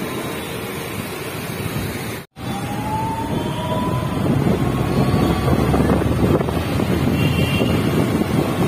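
Wind rushing over the microphone on a moving motorbike, with traffic noise and a faint engine whine that rises in pitch. The sound drops out briefly about two seconds in.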